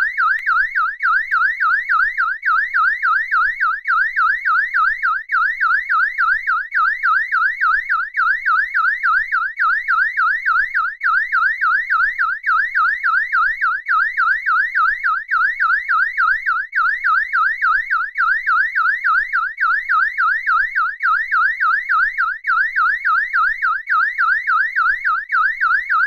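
High-pitched electronic car alarm siren, a single tone warbling rapidly up and down in a fast, steady, unbroken cycle.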